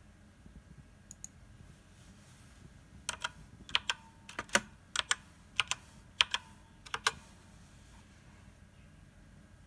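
Computer keyboard keys being pressed: a run of sharp clacks, mostly in quick pairs, between about three and seven seconds in, after a couple of faint clicks about a second in.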